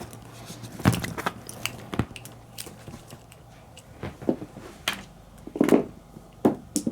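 Scattered short clicks and knocks, about six of them, as objects are handled, over a faint steady background hum.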